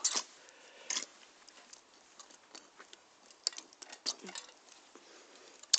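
Costumes on a clothes rail being pushed aside: a few short rustles of fabric brushing close to the microphone, with light clicks, spread over an otherwise quiet stretch.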